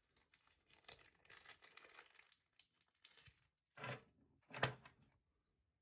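Faint crinkling and rustling as more fly-tying dubbing (tan Hare's Ear Plus) and its packet are handled, with two short, louder crinkles near the end.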